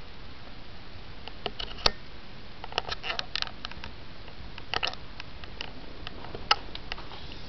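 Scattered sharp clicks and taps over a steady hiss, some single and some in quick clusters, with the loudest clicks about two seconds in and again near the end.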